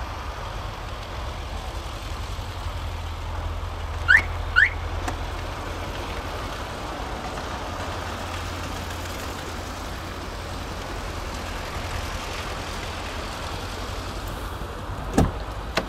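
A car alarm chirps twice in quick succession, two short rising tones, as the key fob is pressed to lock the car. Near the end comes a single short clunk from the car door.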